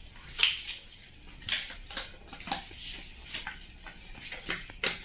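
Scattered light clicks, taps and rustles from a water bottle in a silicone sleeve being handled, fingers working its metal cap.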